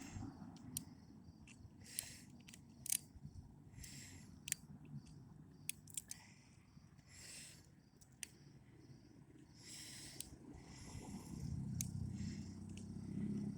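Faint, irregular metallic clicks and short scratchy scrapes of a lock pick and tension wrench working in a door knob lock's cylinder.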